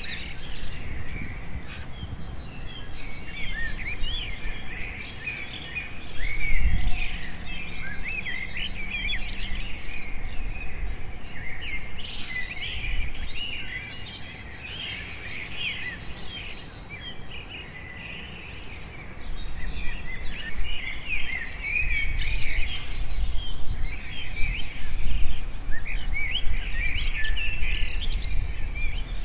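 Many small birds chirping and trilling, short overlapping calls, over a low rumble, with a single thump about seven seconds in.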